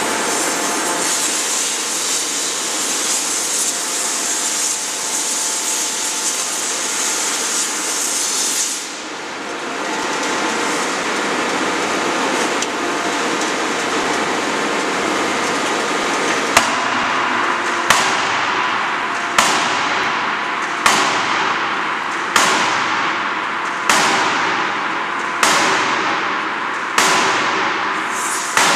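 A 16-ton hydraulic closed-die forging hammer striking a red-hot billet in the dies: about nine heavy blows, one every second and a half or so, beginning a little past halfway, each ringing briefly. Before the blows a loud steady hiss fills the shop and eases about nine seconds in.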